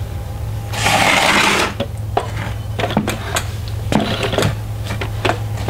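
A wooden lever arm being shifted and refitted on the metal shaft of a homemade windlass: a scraping rasp about a second in, then a string of light clicks and knocks as the wood and metal are handled. A steady low hum sits underneath.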